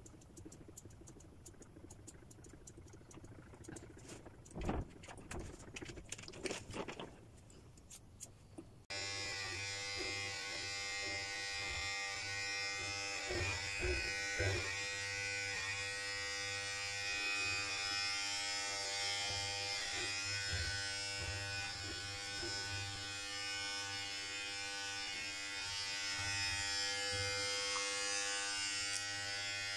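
Electric pet hair clippers switch on about nine seconds in and run with a steady buzz, after a few quiet handling knocks.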